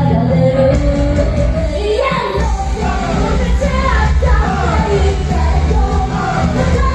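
Live band music with a female vocalist singing over loud bass and drums, recorded in a live house.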